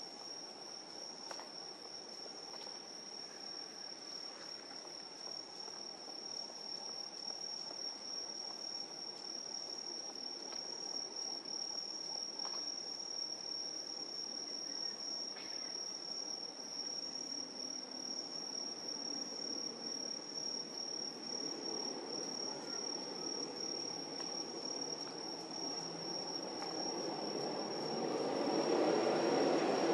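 Night insects, crickets, trilling steadily in one continuous high-pitched tone. Near the end a low rushing noise swells up under it.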